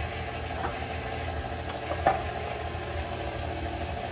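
KitchenAid Classic Plus stand mixer's motor running steadily with a wire whisk beating cake batter in a steel bowl, with one sharp knock about two seconds in.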